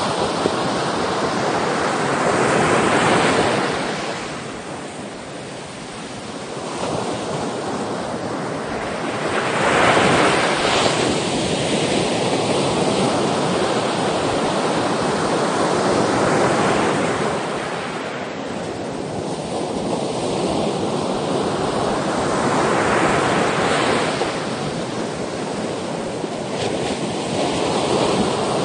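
Ocean waves breaking and washing on the shore, surging and receding every few seconds, with wind on the microphone.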